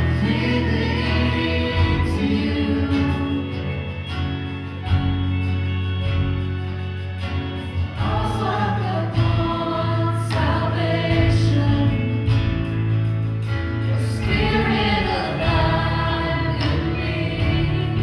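Live Christian worship song: several voices singing together over strummed acoustic guitar and a band with keyboard and a steady bass.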